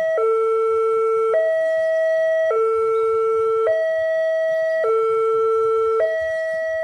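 Railway level crossing warning alarm sounding a two-tone signal: a lower note and a higher note alternate, each held for a little over a second. It warns that a train is approaching and the barriers are down.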